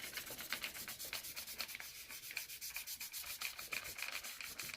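Rapid, even back-and-forth rubbing with alcohol over a car's turn signal lens, wiping the surface clean to prep it for tint film.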